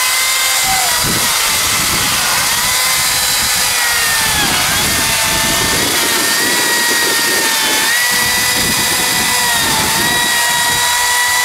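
Makita DUC353 36-volt cordless chainsaw, running on two 18 V batteries, cutting through a 26 cm log of dry, hard wood: a steady electric whine over the chain rasping in the wood, the pitch dipping briefly about three times as the chain is loaded in the cut.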